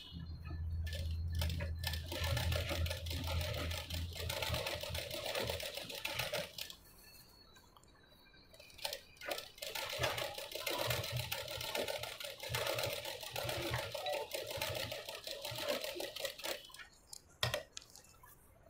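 Sewing machine stitching along a blouse neckline in two runs of several seconds each, stopping for about two seconds in between, as the fabric is turned at the corner. A single sharp click near the end.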